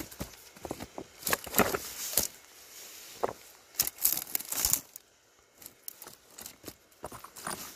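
Footsteps rustling through dry grass and over stones, in irregular bursts of crackling, loudest about a second and a half in and again around four seconds in.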